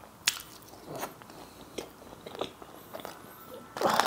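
Close-miked eating: soft biting and chewing of food, with a few short crunchy clicks. Near the end comes a louder rustle as a plastic packet is handled.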